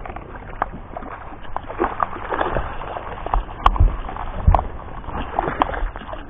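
A hooked largemouth bass thrashing and splashing at the surface as it is fought to the boat, over a steady patter of rain on the water. Three louder sharp knocks with a thud come in the second half.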